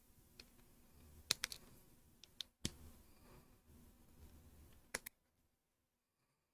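Faint, scattered sharp clicks of plastic LEGO pieces being handled and fitted or pulled apart, several separate clicks over about five seconds, then the sound drops away near the end.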